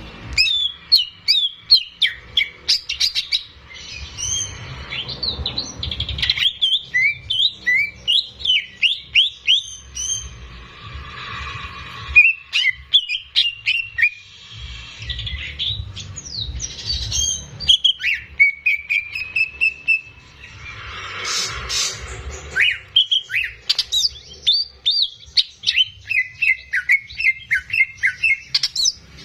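Cucak ijo (green leafbird) singing vigorously: a fast, near-continuous run of sharp chirps and whistled notes that slide up and down, with only brief pauses.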